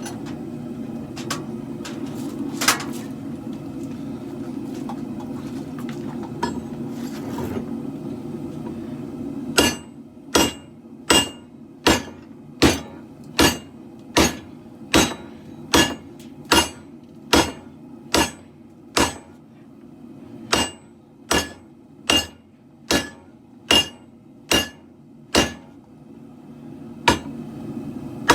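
Hand hammer forging steel on an anvil: a steady run of blows, about four every three seconds, each with a short metallic ring, starting about a third of the way in and pausing briefly near the end. Before the hammering, a steady low rush, typical of the propane forge burners, with a few clinks.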